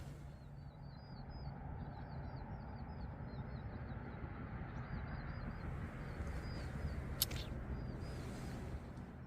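Small birds chirping in quick, repeated short notes over a steady low rush of background noise, with one sharp click about seven seconds in.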